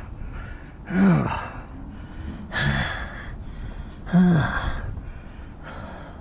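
A man's heavy, breathy gasps with a low falling groan, three times about a second and a half apart, as from someone straining at work.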